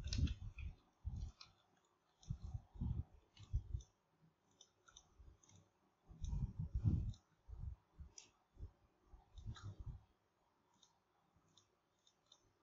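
Computer mouse clicking at an irregular pace, with clusters of dull low thumps from the desk or microphone, falling quiet about ten seconds in.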